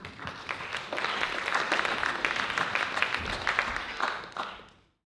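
Audience applauding, many hands clapping at once, fading out about four and a half seconds in.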